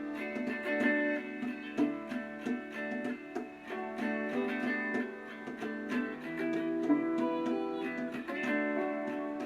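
Background music led by plucked acoustic guitar, a run of picked notes.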